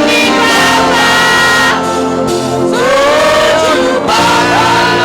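Gospel worship music: a voice singing sliding, ornamented phrases over held instrumental chords.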